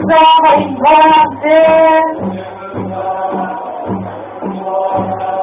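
Background music with a singing voice: three loud held sung notes in the first two seconds, then the accompaniment goes on over a steady beat of about two pulses a second.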